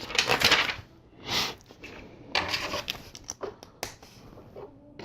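Plastic LEGO pieces rattling and clicking as they are handled and fitted together, in several short bursts with a couple of sharp clicks.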